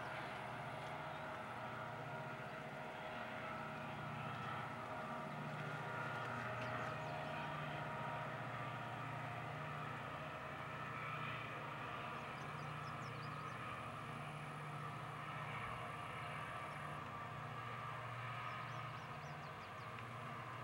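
Freight train of hopper and tank cars rolling past in the distance: a steady rumble with a low, even drone underneath.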